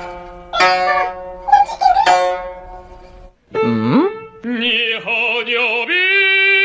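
Guzheng strings plucked by a cat's paws: a few separate ringing notes that die away. After a brief break comes a swoop down and back up in pitch, then a long, wavering sung note.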